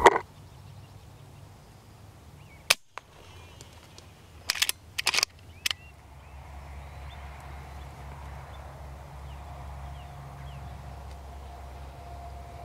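A single sharp click, then about two seconds later a quick cluster of loud sharp knocks or cracks, followed by a faint steady background with a thin hum near the end.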